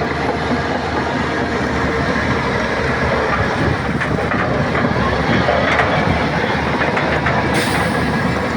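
Shantui crawler bulldozer's diesel engine running steadily, with its steel tracks clattering.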